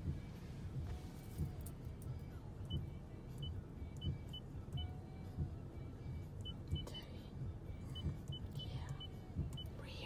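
Low, steady rumble of a car cabin with the engine running, with uneven soft thumps about once a second and a scatter of faint high ticks.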